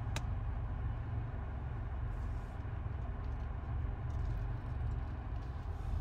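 Low steady rumble in the cabin of a Nissan Altima with the engine running and reverse selected. A single sharp click comes just after the start.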